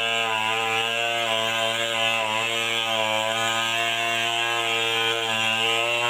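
Chainsaw engine running at a steady speed, a constant buzz whose pitch wavers slightly.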